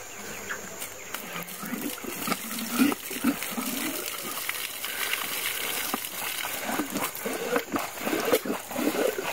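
Water splashing and trickling as a bucket of water is poured into a well's hand pump to prime it.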